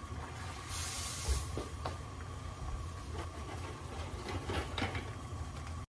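Salted water at a rolling boil in a steel pot, a steady low bubbling rumble, with a short fizzing hiss about a second in as a handful of salt lands in it. Later come a few light taps and clicks as a cardboard pasta box is handled.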